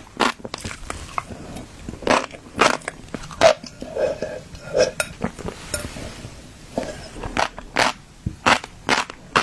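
Fish roe being crushed: a string of sharp, irregular crunches and pops, with a few softer, duller pops in the middle.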